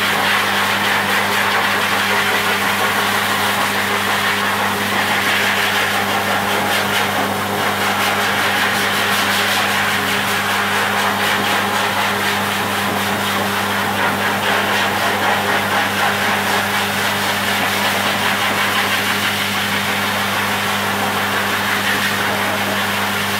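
A motor running steadily, with a low hum under an airy rush.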